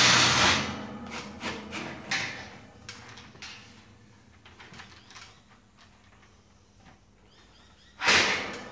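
Cordless drill driving a screw into the steel door-track frame, its run stopping in the first half second, followed by a few light metal clicks. After a quiet spell, a short loud burst of noise comes near the end.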